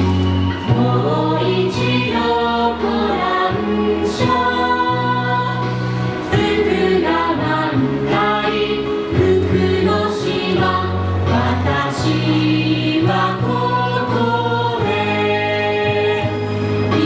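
Music: a song with several voices singing together over an instrumental backing with a held bass line.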